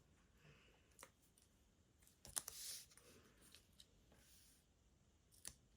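Faint clicks and a brief papery rustle of small card pieces being handled on a craft desk, otherwise near silence.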